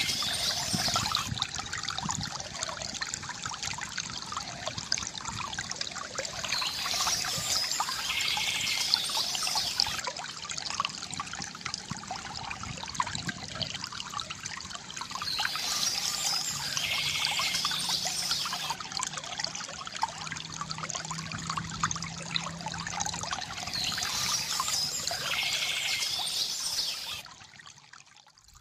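River water gurgling and trickling steadily, with bird chirps coming back about every eight to nine seconds; the sound drops away sharply near the end.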